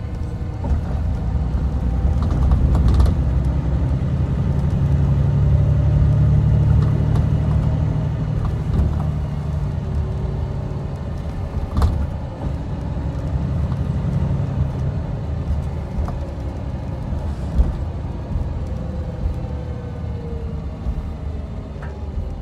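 Coach engine and road rumble heard from inside the passenger cabin while driving, swelling a few seconds in and again near the middle. A few sharp knocks from bumps or rattles stand out over it.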